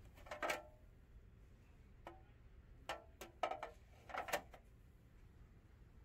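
Stiff clear plastic trays clacking against each other as they are lifted and handled: a series of short, sharp clacks, one about half a second in and a cluster of five or six between two and four and a half seconds in.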